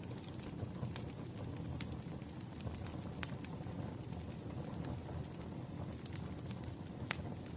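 Wood fire burning: a steady low rumble with occasional sharp crackles and pops of the burning logs, three of them standing out clearly.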